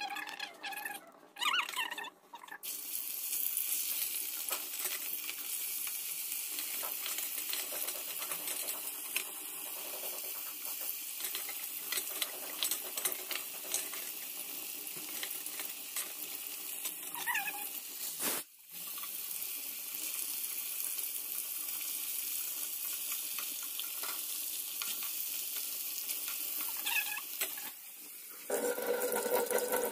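Fish frying in hot oil in a kadai, a steady sizzle with small crackling spits. Near the end a tap starts running into a steel sink.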